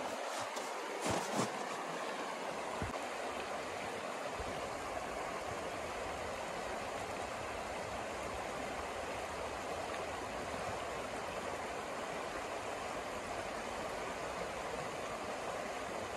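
Shallow river running fast over stones: a steady rushing and rippling of water. A few soft knocks sound about a second in, as the camera is set down.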